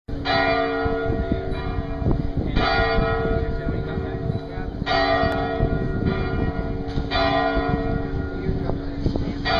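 Bell-tower bells ringing, a fresh strike about every two and a half seconds with the tone ringing on between strikes, over a low rumbling background noise.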